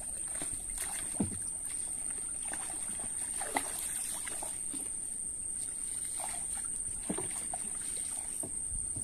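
Small wooden dinghy being poled through shallow creek water: water sloshes and dribbles around the pole and hull, with a few sharp knocks, over a steady high-pitched insect buzz.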